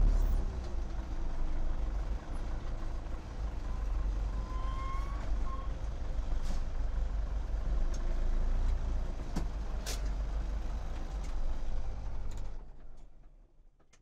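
Zetor 7011 tractor's four-cylinder diesel engine idling unevenly, heard from inside the cab, with a few light clicks and a brief squeak. About twelve and a half seconds in the engine is shut off and runs down to silence.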